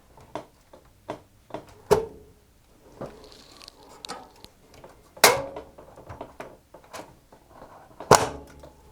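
Clicks and knocks from metal parts of a computer case being handled as the expansion-slot covers are taken out and a graphics card is fitted, with three sharper clanks that ring briefly, about two, five and eight seconds in.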